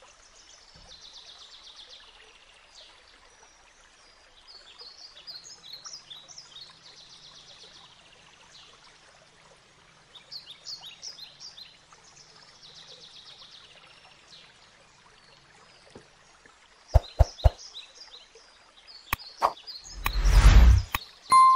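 Songbirds chirping and trilling in short repeated phrases, each lasting a second or two, with pauses between. Near the end come a few sharp clicks, a loud brief whoosh and a ding, fitting the sound effects of an animated subscribe button.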